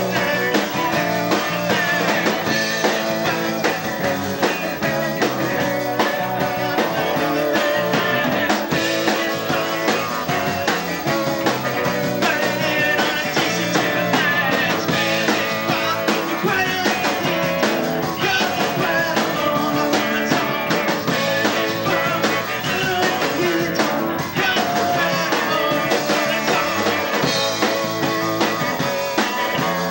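Live punk rock band playing: electric guitars, bass and drum kit, loud and continuous.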